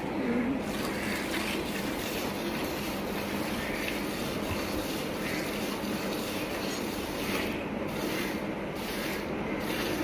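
Cow being milked by hand into a steel pail: jets of milk squirting into the milk already in the bucket, a steady frothy swishing.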